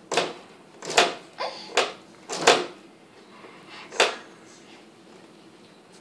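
Refrigerator door being opened and bumped shut over and over: a run of sharp knocks and thuds, about six in the first four seconds, then a quieter stretch.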